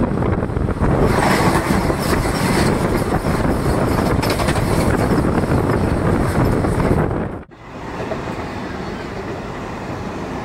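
Kaveri Express passenger train running at speed, a loud rumble and rattle of the wheels on the track. About seven and a half seconds in the sound drops off abruptly and comes back quieter and steadier.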